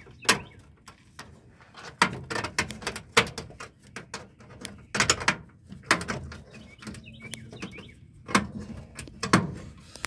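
Irregular sharp metallic clicks and knocks from a Chevy Silverado spare-tire door lock cylinder's outer ring being squeezed together and seated in the steel bumper hole.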